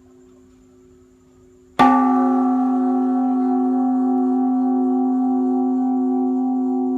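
Buddhist temple bell (đại hồng chung) struck once just under two seconds in, then ringing on with several tones, one wavering slowly, while the faint tail of the previous strike still hangs before it.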